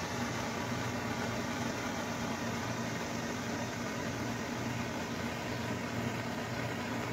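Gas torch burning with a steady hiss and low rumble as its flame melts hot glue sticks.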